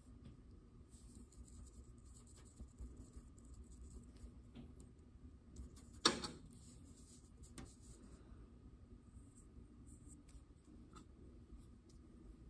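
Faint scratching and swishing of a paintbrush on palette paper as acrylic paint is worked. One sharp knock comes about six seconds in.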